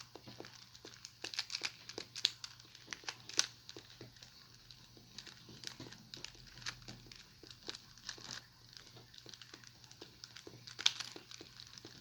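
A plastic Rubik's Cube being turned by hand: quick, irregular clicks and rattles of its layers, busiest in the first few seconds, with a louder clack near the end.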